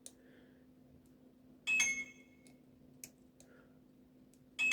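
Dimple-lock picking tools clicking against the pins of a euro dimple cylinder: two short metallic clinks with a brief high ring, one about two seconds in and one near the end, with faint ticks between.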